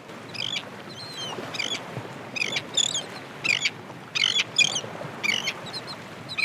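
Seagulls calling: a series of short, high, wavering calls, roughly two a second, over a steady background hiss.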